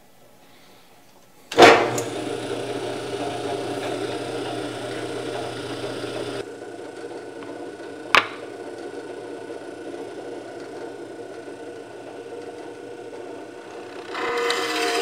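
General 340 drill press switched on with a sharp click, then its motor running steadily with a hum. There is another sharp click about eight seconds in, and the running gets louder near the end.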